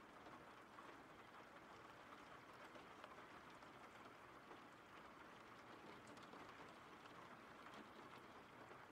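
Faint, steady rain falling, with scattered small drop ticks.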